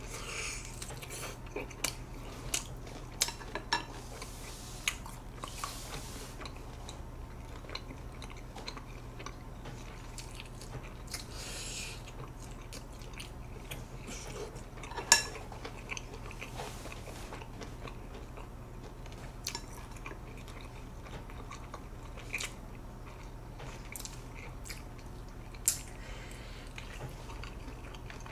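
Close-miked chewing and gnawing of tough grilled pork rib meat, wet mouth sounds with scattered sharp clicks of chopsticks against dishes, over a steady low hum.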